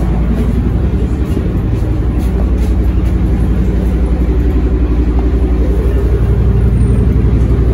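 LiAZ-677MB city bus's V8 engine running steadily, a little louder near the end.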